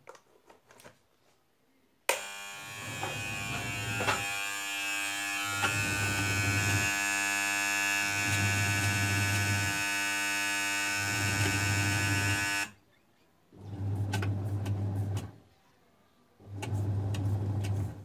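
A few small clicks as the plug goes into the socket, then about two seconds in a semi-automatic washing machine's wash motor and newly fitted gearbox start with a loud electric buzz and whine. The motor's hum comes and goes in bursts of about one and a half seconds, the back-and-forth turning of the wash pulsator. The whine cuts off suddenly near the end, and the motor goes on in shorter bursts with pauses between them.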